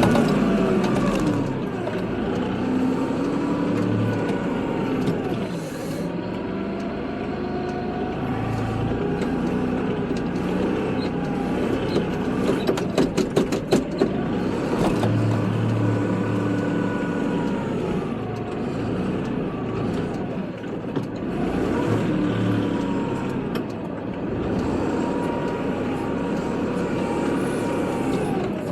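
Kubota tractor engine working through snow plowing, its note rising and falling every few seconds as it pushes and backs off. About halfway through comes a short burst of rapid knocks.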